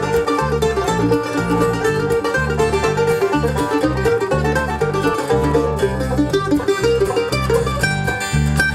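Live bluegrass band playing: banjo and mandolin picking over acoustic guitar, with an electric bass guitar playing a steady run of notes underneath.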